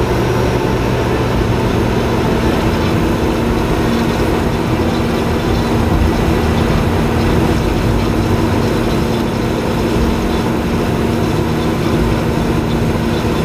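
Heavy vehicle engine sound effect standing in for a moving tank: a steady engine rumble with a constant low hum, which cuts off at the end.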